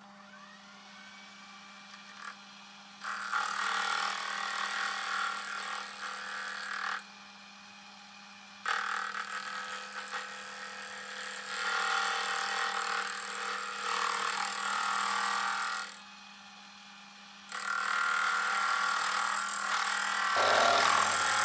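Metal lathe running with a steady motor hum while the tool takes three cuts at a rough cast-aluminium blank, each several seconds of loud, uneven cutting noise. This is an interrupted cut over the lumpy surface of the casting.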